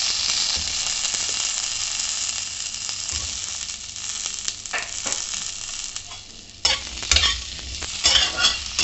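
Potato chunks frying in mustard oil in a metal kadai, sizzling with a steady hiss. About two-thirds of the way in, a spatula starts stirring them, scraping and knocking against the pan in quick strokes.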